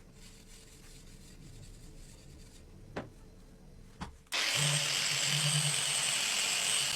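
Two sharp clicks, then a loud, steady abrasive rasp with a motor hum underneath starts suddenly a little past four seconds in: a power tool grinding or sanding the rusted steel of a cleaver.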